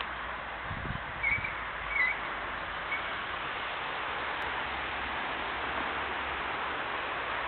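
Steady outdoor hiss of wind, with low wind rumbles on the microphone about a second in and a few short high chirps in the first three seconds.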